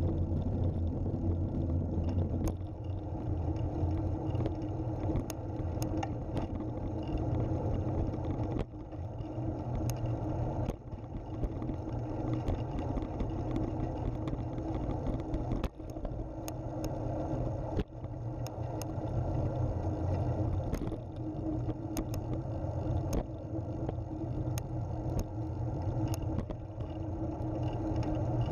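Road and wind rumble picked up by a camera mounted on a recumbent trike rolling along an asphalt trail: a steady low rumble, with a few sharp ticks scattered through.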